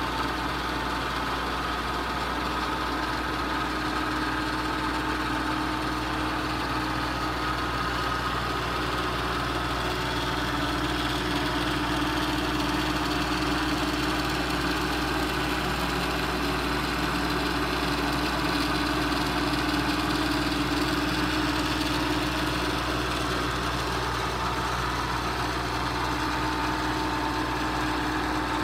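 Vertical milling machine running, its spindle turning an end mill that machines the bosses on a bronze steam manifold casting: a steady motor hum with a constant whine and no distinct knocks.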